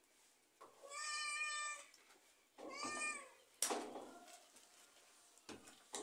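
A cat meowing twice: a drawn-out meow about a second in and a shorter one that rises and falls near three seconds, followed by a sharp click.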